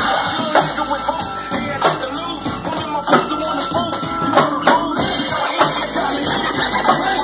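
Live beat mixed on DJ controllers and turntables: dense electronic music with a steady percussive beat.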